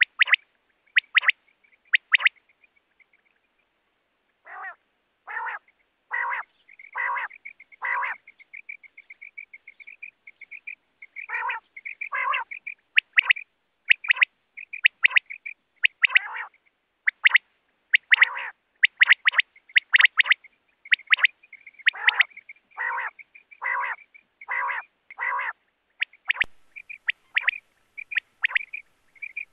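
Common quail calling: short, sharp high notes in quick groups, mixed with lower, rougher notes about one every three quarters of a second and a soft twittering between the calls. The calls pause for about two seconds a few seconds in.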